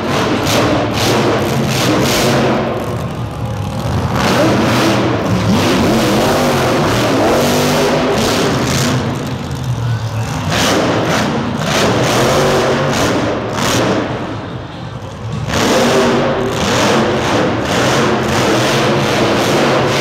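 Grave Digger monster truck's supercharged V8 revving hard in repeated surges, easing off briefly a few times between bursts, with music mixed in.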